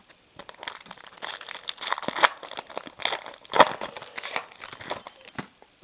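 Foil wrapper of a 2011 Bowman Draft baseball card pack crinkling and tearing as it is opened by hand, a run of irregular crackles with the loudest two about two and three and a half seconds in.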